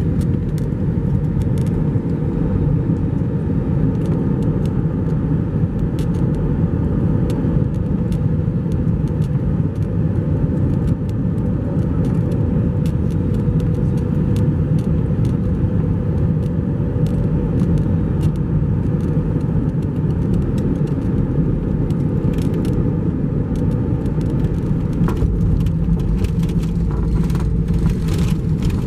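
Cabin noise of an Airbus A321-231 on final approach, heard from a window seat over the wing: a steady loud rumble of its IAE V2500 turbofans and the airflow past the fuselage. Near the end, as the jet comes over the runway, rattles and clicks in the cabin come more often.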